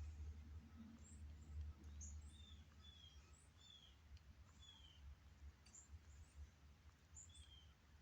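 Faint, short, falling chirps scattered through a near-silent window, bird-like, over a low steady rumble.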